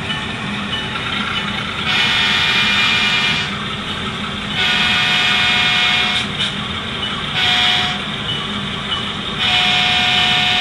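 Tsunami sound decoder in an HO-scale BNSF GE C44-9W model locomotive, playing a GE FDL-16 diesel engine running steadily under four horn blasts: long, long, short, long. This is the grade-crossing horn signal, and the last blast is still sounding at the end.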